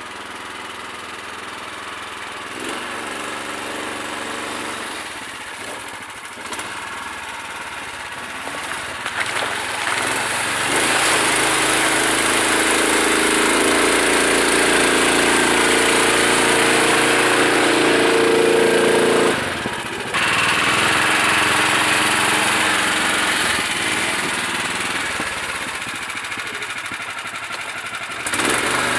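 Engine of a homemade all-terrain vehicle running as the machine drives through snow toward the microphone. It grows louder and holds strong in the middle, drops suddenly for a moment about twenty seconds in, then picks up again and eases off near the end.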